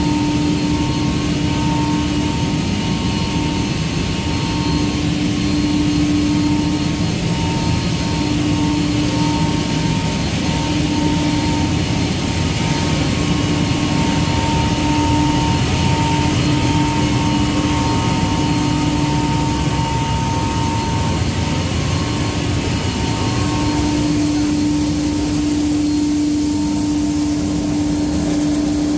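Parallel twin-screw extruder line and its feeding equipment running: a loud, steady machine drone with a constant hum tone that fades in and out.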